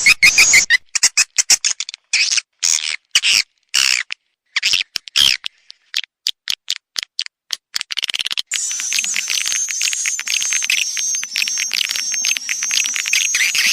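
Recorded swiftlet calls played as a lure call: rapid high, buzzy chirps in short bursts with gaps between them, changing about eight seconds in to continuous dense twittering with a wavering high trill over it.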